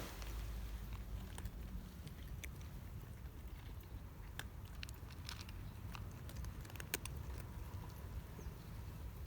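Cats chewing dry food: scattered sharp crunches over a steady low rumble.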